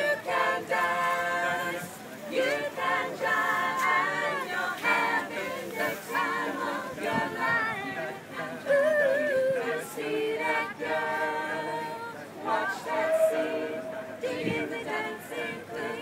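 A small mixed group of men and women singing together a cappella, several voices at once with no instruments.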